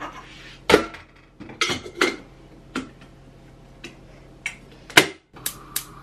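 A few sharp knocks and clinks of a metal kettle and pans being handled on the hob, the loudest just before one second in and about five seconds in. After a brief gap near the end, a gas hob's spark igniter starts clicking about three times a second.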